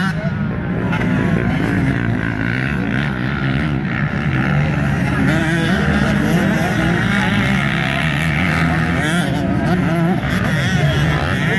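Several motocross dirt bikes racing around the track at once, their engines revving up and down so the pitches rise and fall and overlap.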